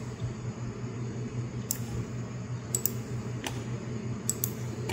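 Steady low hum of room tone, with a few faint scattered clicks.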